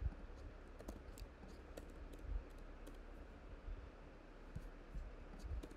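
Faint, irregular clicking of a computer keyboard and mouse: about a dozen scattered clicks, some with a soft low thump.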